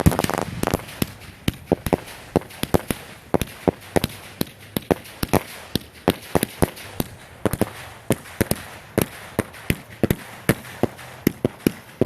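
Aerial fireworks shells going off in rapid succession: a dense string of sharp bangs, several a second, with a louder burst right at the start.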